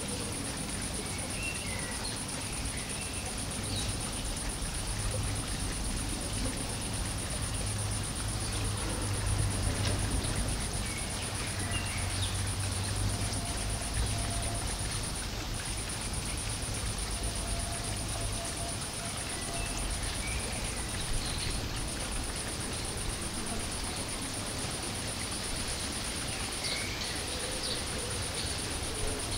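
Steady background ambience: a continuous high-pitched whine or insect-like buzz over a low hum that eases off after the middle, with faint short chirps now and then.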